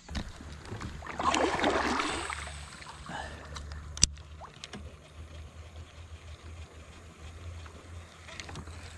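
Water splashing and sloshing around a kayak, loudest about one to two seconds in, over a low steady rumble, with one sharp click about four seconds in.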